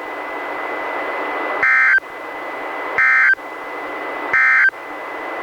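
Three short NOAA Weather Radio SAME digital data bursts, each about a third of a second and about 1.3 s apart, over steady radio hiss: the end-of-message code that closes a Required Weekly Test broadcast.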